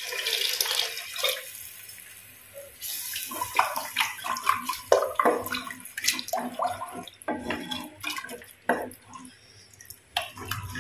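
Water poured from a steel vessel into a clay pot of thick masala paste, the pour tapering off over the first two seconds or so. Then a wooden spatula stirs the thinned gravy, sloshing it and knocking and scraping irregularly against the clay pot.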